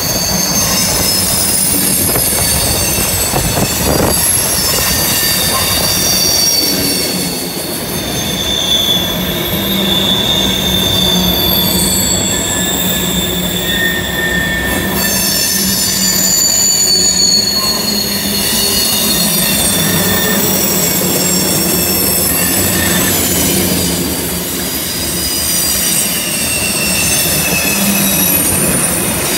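Freight train tank cars rolling through a curve, their steel wheels squealing against the rail in several high, slowly shifting tones over a steady low rumble. The squeal is flange and wheel friction as the cars are forced around the curve.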